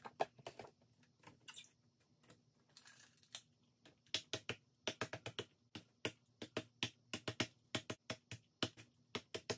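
Light, quick taps of a small ink pad being pressed onto rubber stamps on an acrylic stamping plate. A few scattered taps at first, then several a second from about four seconds in.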